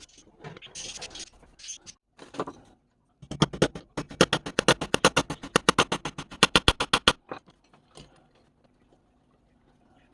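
A quick run of sharp, even scraping strokes, about ten a second, lasting about four seconds, after lighter scattered scratches and clicks.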